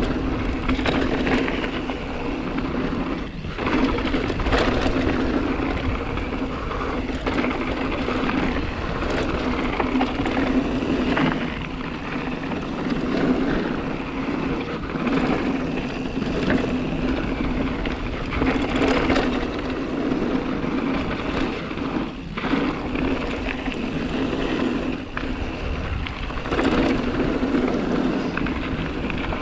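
Hardtail mountain bike descending a dirt trail, picked up on the rider's action camera: continuous wind rush and knobby tyres rolling on dirt, with frequent short rattles and knocks as the bike goes over bumps.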